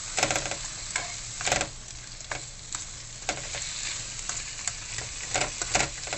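Prawns, onion and chilli sizzling in a wok, stir-fried with a spatula that scrapes and knocks against the pan about once a second over a steady frying hiss.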